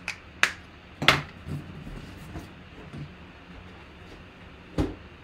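Cardboard product boxes being handled and set down on a table: a few sharp knocks, the loudest about a second in and another near the end.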